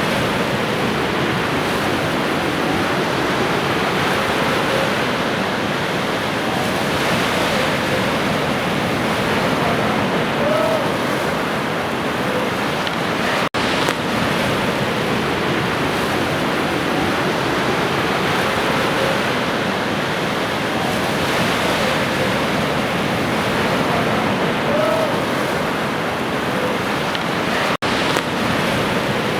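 Ocean waves washing steadily on a shore, a continuous surf noise that cuts out for an instant twice.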